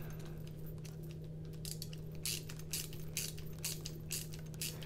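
A T8 Torx driver bit turning in a folding knife's pivot screw, giving a run of small, irregular metallic clicks from about a second and a half in, as what seems to be thread lock in the pivot threads is worked out. A steady low hum runs underneath.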